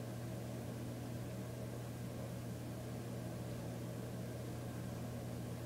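Steady low hum over a faint even hiss, with no distinct strokes or knocks standing out.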